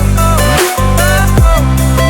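Loud electronic dance music with heavy bass notes that slide in pitch and a repeating synth pattern.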